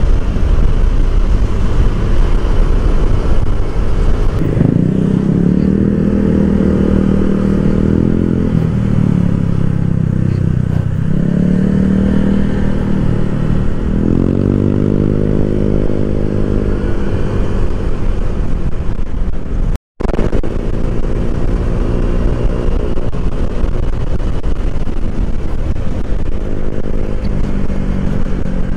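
Honda Click 150i scooter's single-cylinder engine running on the move, under heavy wind rush on the microphone. Its pitch rises and falls a couple of times in the first half, then holds fairly steady. The sound cuts out for an instant about two-thirds of the way through.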